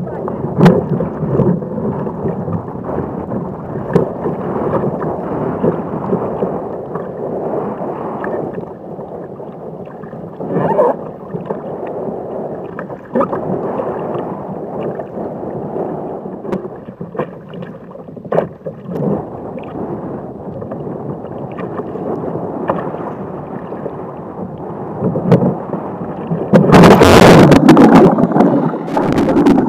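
Rough surf sloshing and splashing around a sit-on-top fishing kayak, with a muffled, rushing sound and scattered sharper splashes. About 27 seconds in, a wave breaks right on top, much louder and hissier.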